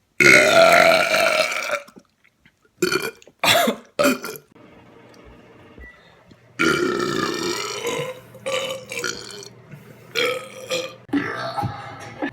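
A string of human burps. A long drawn-out belch opens it, then come a few short sharp burps, and another long belch about six and a half seconds in, followed by more short ones.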